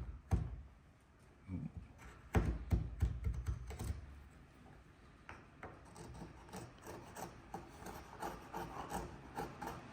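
A hand tool rubbing and scraping on wood in short repeated strokes, as a shouldered housing joint is cleaned up before a test fit. There are a few louder knocks about two to four seconds in.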